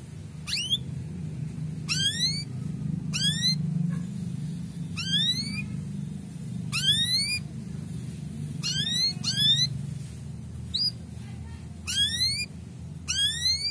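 Male domestic canary giving its 'cuit cuit' call: about ten short bursts of quick rising chirps, one every second or two, over a steady low hum.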